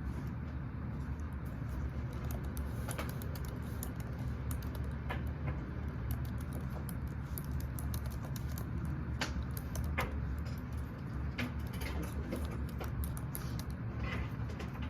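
Computer keyboard being typed on: quick, irregular key clicks over a steady low hum.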